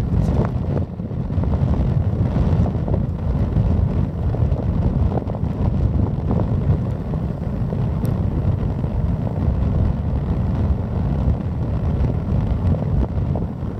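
Wind buffeting the camera microphone: a loud, gusting low rumble with no clear engine note in it.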